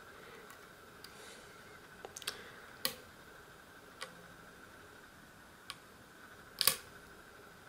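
Sparse, faint metallic clicks of a hook pick and tension wrench working the pins of a euro-profile pin-tumbler cylinder held in false set, loudest a sharp double click near the end. A faint steady high whine runs underneath.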